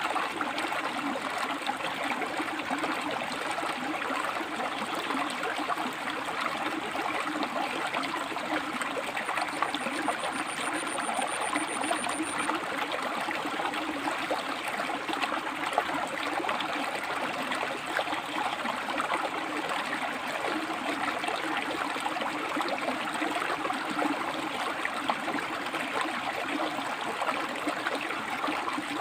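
River water flowing and splashing over rocks: a steady, unbroken rush.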